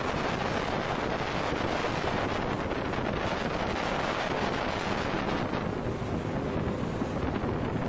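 Steady wind noise buffeting the microphone, mixed with the wash of choppy water, aboard a sailboat under way.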